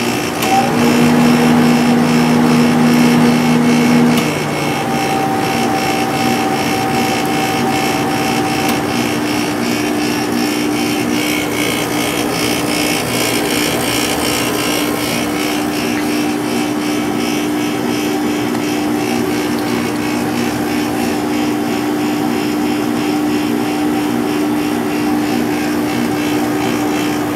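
1997 Sharp 8500 BTU window air conditioner running: a steady fan rush with a low electrical hum. A louder, deeper hum in the first four seconds drops away, then it runs on evenly.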